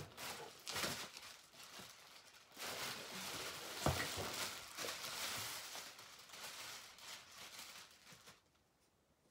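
Clear plastic wrapping crinkling and rustling as it is pulled and stripped off a new fishing rod, with one sharp knock about four seconds in. The crinkling stops shortly before the end.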